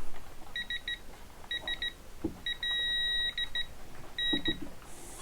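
Digital torque meter beeping as a cylinder-head bolt is pulled up to torque: groups of short high electronic pips, with one held tone of about a second near the middle.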